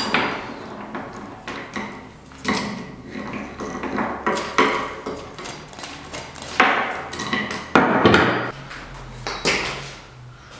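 A large knife blade chopping hard into plastic casing and circuit boards on a felt-topped board: several sharp chops a second or two apart, each followed by a brief clatter of pieces.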